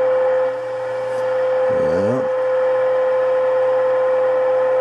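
A 1935 Atwater Kent Model 145 tube radio's loudspeaker sounding the signal generator's steady test tone over a low hum, while its IF coils are being peaked during alignment. The tone dips briefly about half a second in, then comes back to full strength.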